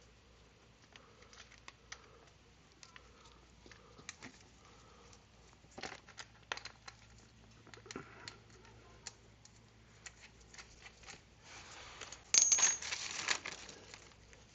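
Small clicks and knocks of metal parts being handled as a motorcycle's chain cover and its bolts are fitted back on. About twelve seconds in, there is a louder metallic clatter of tools lasting a little over a second.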